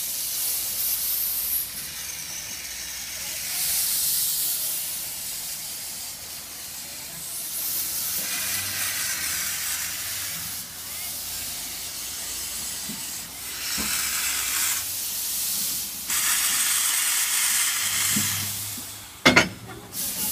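Steam locomotive's cylinder drain cocks hissing, the escaping steam rising and falling in several surges. A single sharp metal clank stands out near the end as its buffer meets a wagon's.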